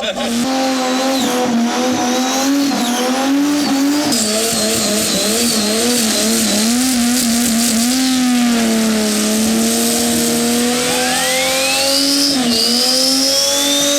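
Turbocharged Ford AU Falcon's 4.0 L Intech inline-six held at high revs in a burnout, the revs bouncing up and down, with tyres squealing. A high whistle climbs in pitch near the end.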